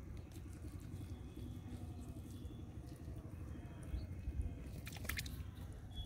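Wet crackling and squishing of hands picking small fish out of tangled weeds and debris, over a low rumble, with a few sharp clicks about five seconds in.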